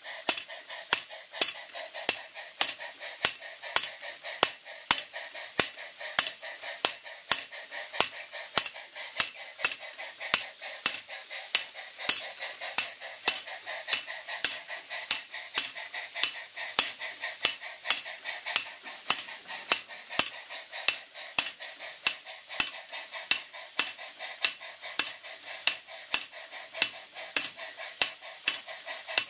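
A home-made model hammer, belt-driven by a live-steam Jensen 20G toy steam engine, striking its steel anvil plate in a steady beat of bright metallic clinks, about three every two seconds. Under the strikes is the steady hiss of the steam engine running.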